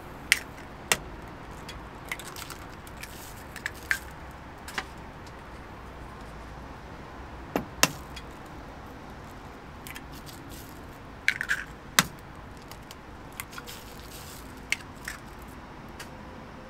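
Sharp metallic clinks and knocks at irregular intervals, a dozen or so, as utensils strike the metal egg bread baking molds, over a steady low background noise.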